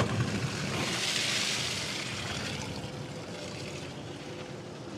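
Water gushing out of a cementing pump truck's opened 2-inch downhole drain valve and splashing onto gravel, a rushing hiss that swells about a second in and then tapers off: the lines being drained so they cannot freeze.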